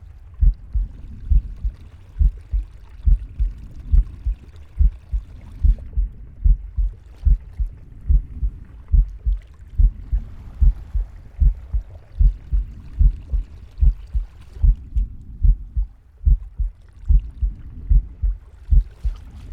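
Heartbeat heard up close: steady low thumps, about two a second. A soft breathing hiss swells and fades every few seconds under the beats.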